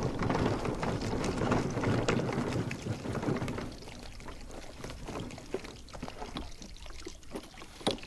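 Wheels of a large 122-quart portable fridge/freezer rolling over mulch and dirt: a steady, rough rolling noise that stops about four seconds in. A few light clicks follow as the pull handle is worked.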